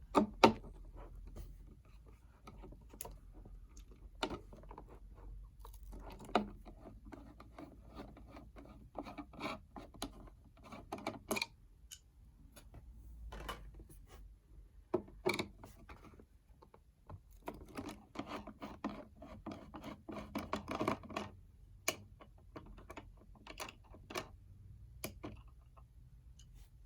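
Scattered light clicks, scrapes and rubs of computer parts being handled and fitted during a PC build, with a few sharper knocks now and then.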